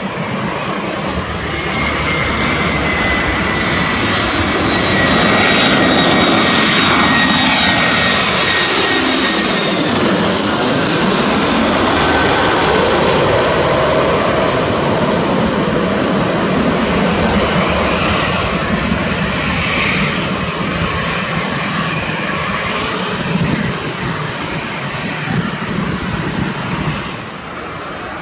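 Jet airliner engines passing close by, loud throughout and loudest in the middle, with a high whine that falls in pitch as the aircraft goes past.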